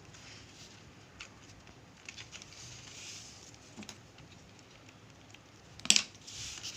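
Paper crafting at close range: light rustling and small scattered taps as cut-out paper pieces are handled, with one sharper click about six seconds in.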